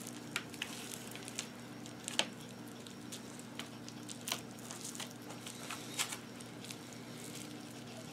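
Small plastic radio casing and parts being handled by hand on bubble wrap: scattered light clicks and crinkles over a faint steady hum.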